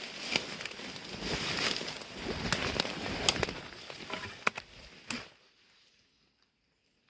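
Close rustling and crackling with several sharp snaps, stopping about five seconds in.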